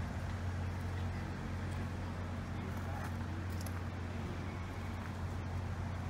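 A steady low mechanical hum under an even wash of street noise.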